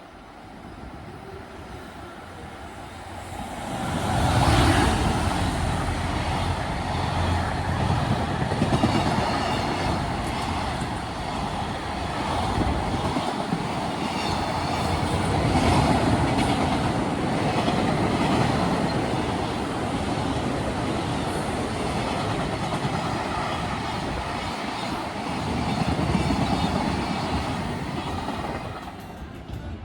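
JR Freight EF210 electric locomotive and its freight wagons passing. The sound rises sharply about four seconds in, then the train rumbles steadily by for some twenty-five seconds and drops away near the end.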